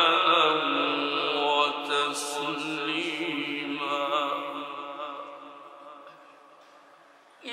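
Male reciter chanting Quran recitation (tilawa) in a melodic, ornamented style, with long held and wavering notes. The phrase weakens and fades almost to silence over the last few seconds.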